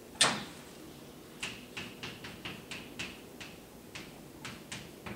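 Chalk writing on a blackboard: one sharp knock near the start, then a string of short chalk taps and scratches, about two or three a second.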